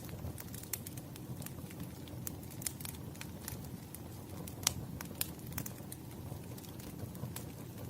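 Wood fire crackling: a steady low rumble of burning logs with irregular sharp pops and snaps, one louder pop a little past halfway.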